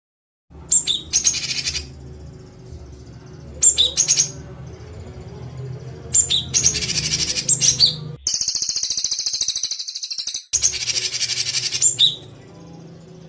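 Recorded songbird giving harsh, rapid-fire buzzy call bursts of the 'tembakan kasar' kind used in masteran training tracks. There are five bursts a couple of seconds apart, each opening with sharp high notes. The fourth, about eight seconds in, is longer and harsher than the rest, and a low hum runs under them all.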